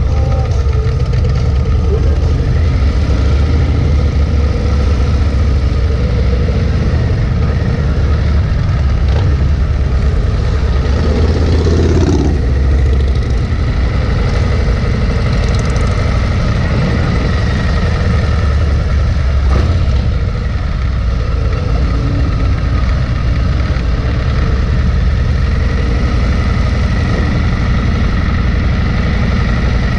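Bagger motorcycle engine running steadily at low cruising speed with a deep rumble, heard close up from a camera mounted on the bike.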